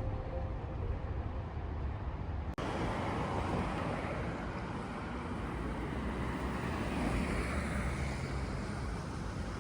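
Soft music ends abruptly about two and a half seconds in and gives way to a steady rushing outdoor background noise.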